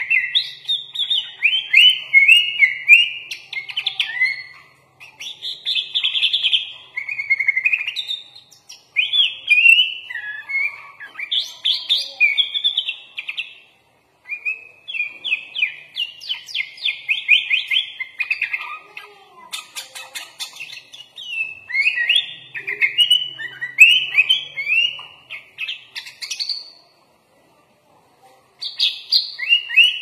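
Sooty-headed bulbul (kutilang) singing a fast, continuous run of chirping, whistled phrases, a song filled out with phrases imitated from other birds such as the white-rumped shama. The song breaks off briefly about 14 seconds in and again near the end.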